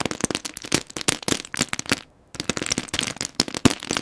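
A rapid, irregular clatter of sharp clicks and crackles, breaking off for a moment about two seconds in and then going on.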